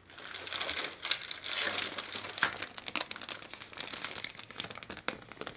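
Plastic bags crinkling and rustling as the kit's bagged plastic parts sprues are handled, with many small clicks.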